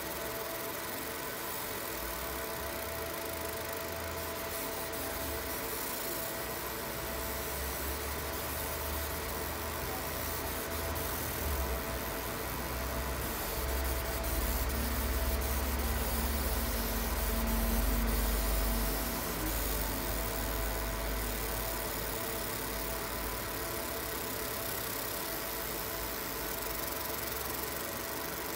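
30 W fiber laser marking machine running while it processes a metal plate: a steady machine hum with several fixed tones and a light hiss, under a low rumble that swells through the middle of the stretch and eases off again.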